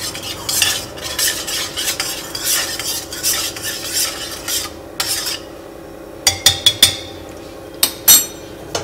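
A spoon stirring salt into water, scraping round the vessel in repeated strokes for about five seconds, then a few sharp metallic clinks. A steady low hum runs underneath.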